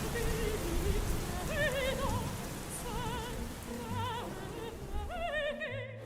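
Operatic singing with wide vibrato over steady rain; the high end of the sound drops away briefly near the end.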